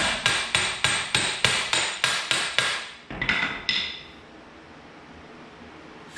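Hammer blows on steel during installation of a mini excavator's thumb hardware: about ten quick, evenly spaced strikes at roughly three a second, then two slower strikes that ring metallically.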